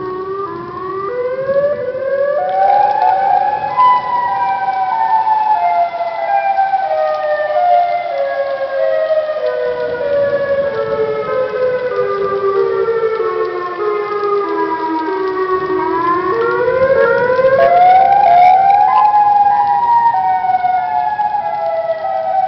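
Outdoor tornado warning siren wailing loudly: the pitch rises over a few seconds, falls slowly for about twelve seconds, then rises again near the end.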